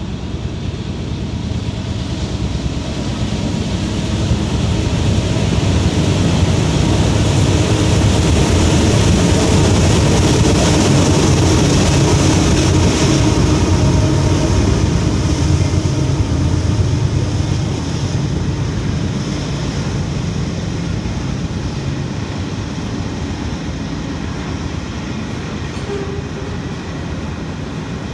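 Freight train of covered hopper cars rolling past, a steady rumble and clatter of wheels on the rails. It swells to its loudest for several seconds around the middle as the train's red diesel locomotives go by, then eases back to the rolling of the cars.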